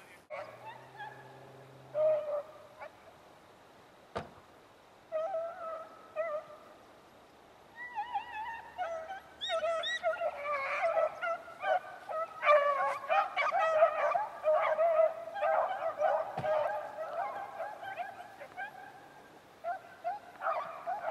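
A pack of beagles giving tongue: a few scattered cries at first, then many hounds crying together from about eight seconds in, easing off briefly near the end before picking up again. This is the cry of the pack working a scent line.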